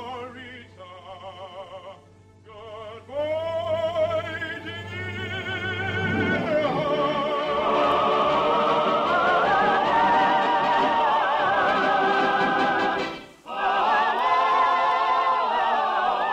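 Operatic singing with vibrato over musical accompaniment, soft at first, then swelling after about three seconds into a loud, full passage. The music drops out briefly about thirteen seconds in, then comes back.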